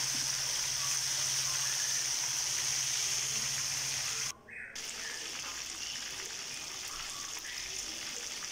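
Chicken pieces deep-frying in hot oil in a wok: a steady, bubbling sizzle, with a low hum under it in the first half. The sound drops out for a moment about halfway through and then carries on a little quieter.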